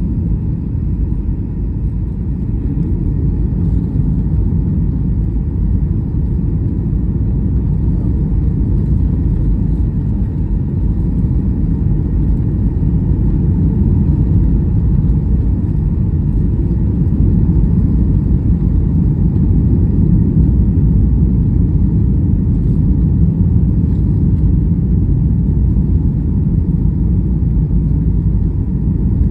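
Steady low rumble of an airliner's cabin noise, engines and airflow, on approach to landing, growing a little louder about halfway through.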